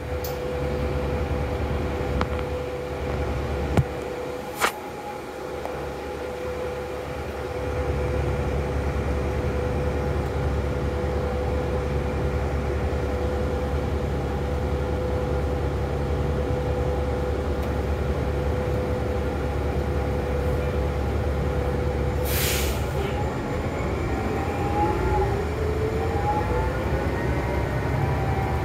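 Interior of a New Flyer XD40 diesel city bus idling with a steady whine while stopped. About 22 seconds in comes a short hiss of air from the brakes, and then the engine and transmission whine climbs as the bus pulls away.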